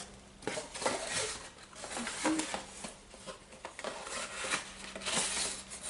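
Hands handling a product and its packaging: light rustling with scattered small taps and clicks.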